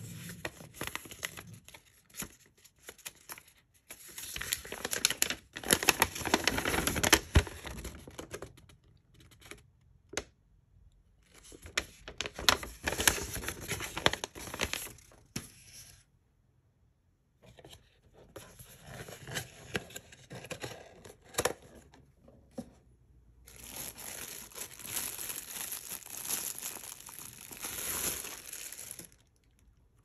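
Clear plastic bag crinkling and rustling as an electric pencil sharpener is pulled out of it by hand, in four bursts with short pauses between.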